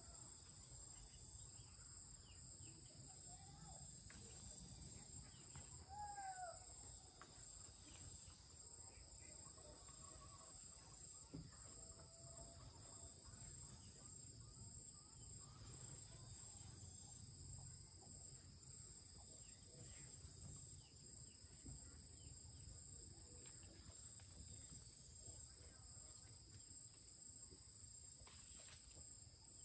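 Faint, steady high-pitched insect chorus, two unbroken tones, with a few short chirps about three to six seconds in.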